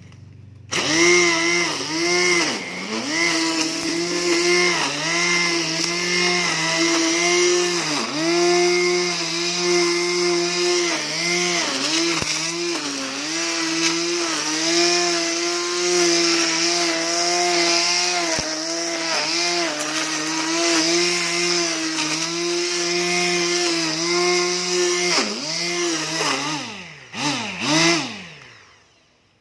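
Electric string trimmer fitted with thick nylon line, its motor starting with a high whine about a second in. Its pitch dips briefly again and again. Near the end it cuts in and out a few times and winds down to a stop.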